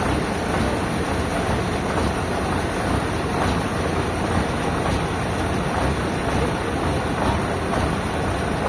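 Industrial sawmill machinery running steadily with a dense, even rumble.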